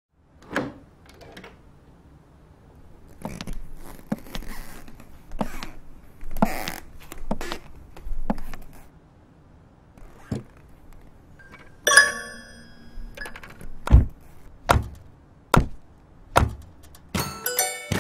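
Sparse percussive opening of a song: scattered knocks and rustling sounds, one ringing chime about twelve seconds in, then a steady low thump about every 0.8 seconds. Near the end a run of bright, bell-like notes comes in.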